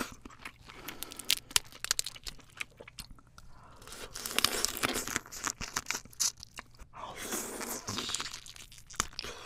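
A person biting and chewing spicy shell-on crab close to the microphone: scattered sharp crunching clicks, denser around the middle and again about three-quarters of the way through.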